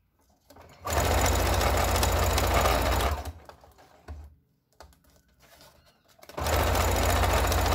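Electric domestic sewing machine stitching bias binding onto clear plastic sheet, running in two spells of about two seconds each, with a quiet pause between them; the second spell starts near the end and is still running at the close.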